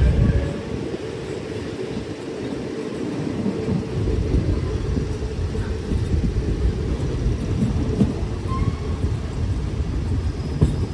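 Passenger train rolling slowly along the track, heard from an open coach window: a steady low rumble of wheels and carriage that grows louder from about four seconds in.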